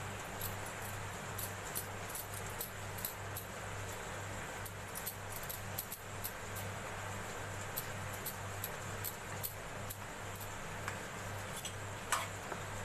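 Sandwiches frying in butter in a non-stick pan, a steady sizzle with scattered small crackles.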